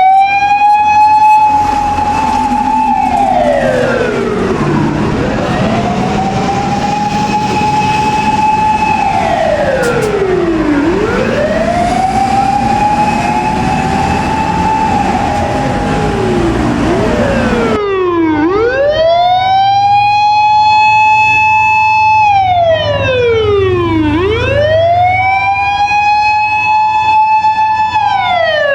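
Fire engine sirens wailing, each cycle rising in pitch, holding, then falling over about five to six seconds, over engine and traffic noise. Two sirens overlap at first; about two-thirds in, the sound cuts to a single cleaner siren with a short beep repeating alongside it.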